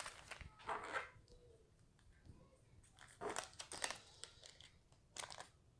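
Faint crinkling and tearing of a trading-card pack wrapper being opened, in a few short rustles with quiet gaps between.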